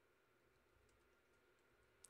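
Near silence with a few faint computer keyboard key clicks, about the middle and near the end.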